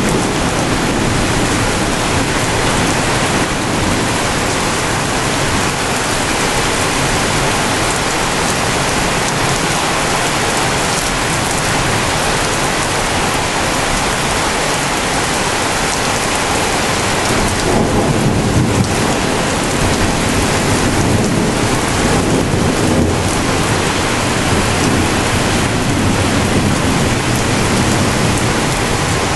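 Heavy rain falling steadily in a thunderstorm, with low rumbles of thunder swelling a little past halfway through and again a few seconds later.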